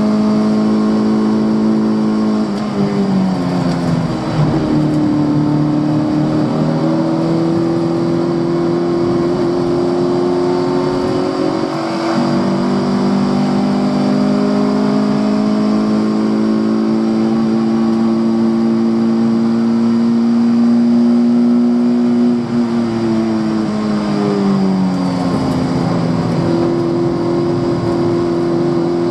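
Fiat Cinquecento 900 race car's small four-cylinder engine under load, its revs held high and steady. Twice the revs drop away and then climb back up.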